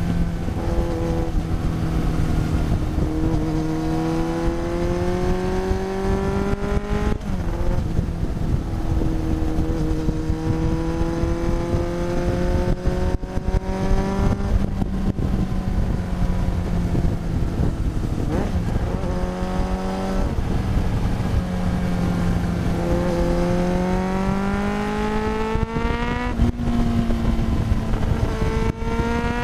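1993 Yamaha YZF750SP inline-four running through a full Black Widow exhaust with the EXUP valve deleted. It pulls up through the revs in several steady climbs, each cut off by a sudden drop in pitch at a gear change, over a constant low wind-like rumble.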